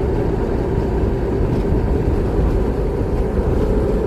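Tour boat's engine running steadily: a constant hum over a low rumble, without let-up.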